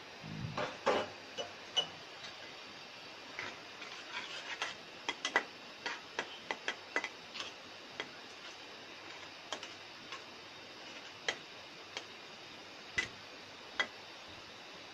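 A spatula tapping and scraping against a cooking pan while instant noodles in sauce are stirred. Irregular sharp clicks come thick over the first several seconds and then more scattered, over a steady low hiss.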